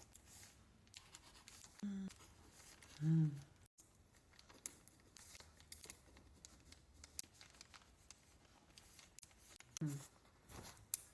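Quiet pause filled with faint scattered clicks and scratchy rustling of small handling noises. Short hummed vocal sounds come about two and three seconds in, with another brief one near the end.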